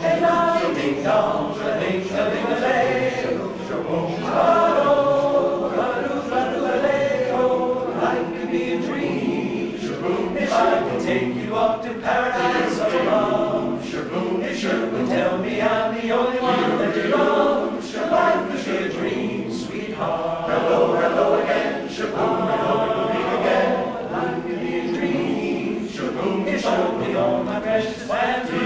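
Men's barbershop chorus singing a cappella in close harmony.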